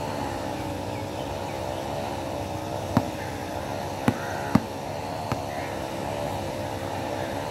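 Basketball bouncing on a hard outdoor court as it is dribbled: four sharp bounces, irregularly spaced, between about three and five and a half seconds in. A steady wavering drone continues underneath.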